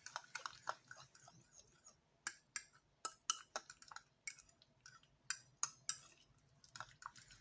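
A fork stirring and clinking against the side of a bowl as a sauce of ketchup, mayonnaise and chopped herbs is mixed: light, irregular taps, several a second.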